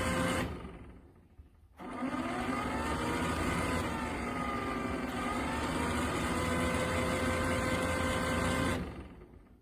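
A motor whirring: it fades out briefly, starts up again with a rising whine over a steady hum, runs evenly, then dies away near the end.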